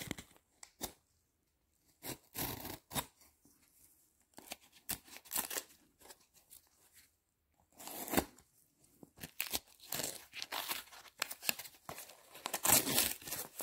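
Cardboard postal box being torn open by hand: irregular bursts of tearing, scraping and rustling cardboard with short pauses, busier in the second half.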